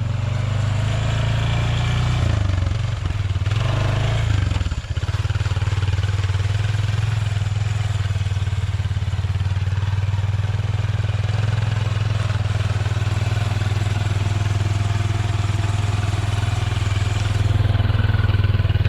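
Honda Pioneer 500 side-by-side engine running under way, its note rising and falling over the first few seconds, then holding steady.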